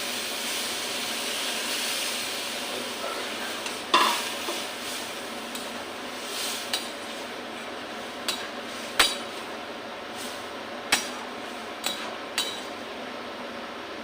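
Sizzling and hissing as water goes into a hot pan of fried vegetables and dried fish, louder for the first few seconds, then a metal spatula stirring and clinking against the pan about half a dozen times.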